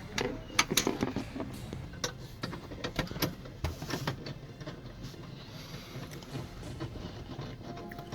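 Irregular clicks and light knocks of hard parts being handled and worked on by hand, coming thick and fast in the first half and thinning out later.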